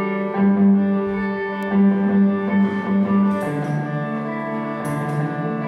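Electric guitar played through effects pedals, holding long sustained notes that sound almost bowed, over layered chords; the low note steps down to a lower pitch a little past halfway.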